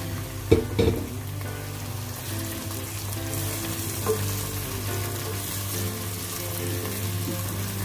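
Chopped tomatoes and onions sizzling in hot oil in a frying pan while being stirred with a wooden spatula. A couple of sharp knocks come about half a second in, and a lighter one near four seconds.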